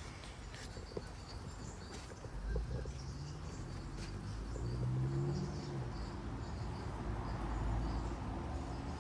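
Birds chirping now and then over outdoor background noise. About two and a half seconds in, a low rumble with a wavering hum swells and then eases near the end.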